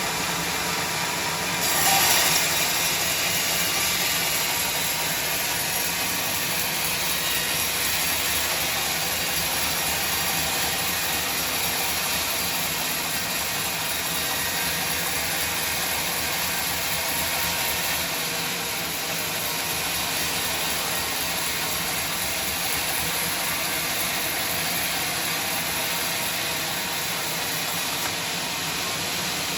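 Sawmill bandsaw running steadily while cutting through timber, with a brief louder surge about two seconds in.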